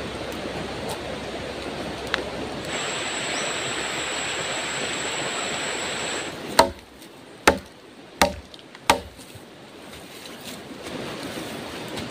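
Four sharp chopping strikes of a machete into wood, a little under a second apart, in the second half. Before them there is a steady rushing background of running river water, with a thin high steady whine for a few seconds.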